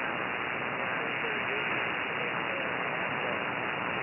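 Steady hiss of static from a shortwave ham radio receiver on the 20-metre band, heard between transmissions on a voice net. A faint, weak voice is barely audible under the noise.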